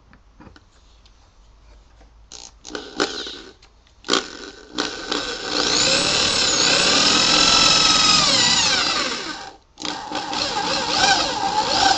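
Power drill driving a Teks self-drilling screw through plywood into aluminum framing: a few short bursts of the motor, then a long run with its pitch rising and falling as the screw bores and taps in. It stops briefly about three-quarters of the way through, then runs again.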